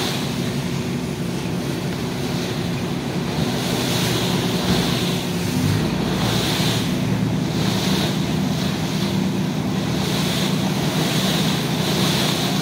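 A boat's engine running at a steady hum while the boat moves along the river, with water rushing and splashing against the hull and wind buffeting the microphone.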